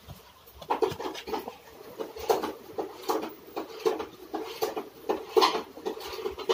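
Kitchen knife cutting on a chopping board: a series of irregular short knocks and scrapes, one or two a second.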